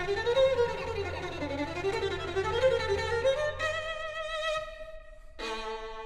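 Background music: a melody of quick rising and falling runs of notes, then a few held notes, a short break around five seconds in, and new held notes entering just after.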